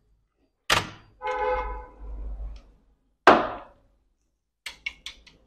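Laptop hard drive being pried loose and lifted out of its bay: two sharp knocks of the drive and plastic chassis, with a few light clicks near the end. Between the knocks, a steady pitched tone sounds for about a second and a half.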